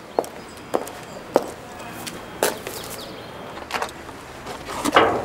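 A person's footsteps on a paved driveway, about a step every half second at first and then further apart, with a louder knock near the end.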